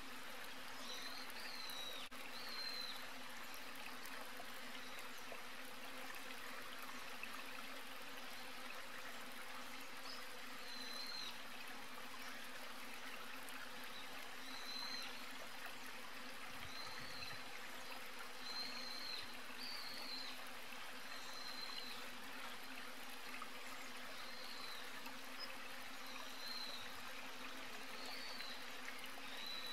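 Outdoor nature ambience: a steady hiss and hum of insects or running water, with short high chirps repeating every second or two.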